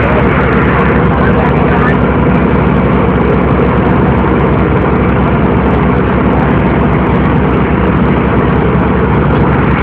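Passenger boat's engine running steadily, heard on board, with an even low throb.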